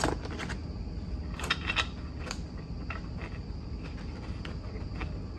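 Scattered small clicks and taps of a screw and metal tool parts being handled and tried in a threaded hole, over a steady background hum with a thin high tone.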